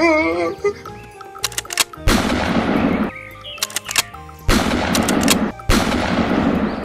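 Three loud shotgun-blast sound effects, each a burst that fades over about a second, coming about two, four and a half and nearly six seconds in. A few sharp clicks come before the first two blasts. Background music plays underneath.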